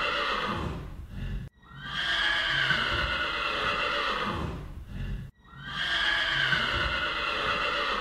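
Horse whinnying: a long, wavering whinny that falls slightly in pitch, with low thuds beneath it. The same whinny repeats about every four seconds, each time cut off abruptly.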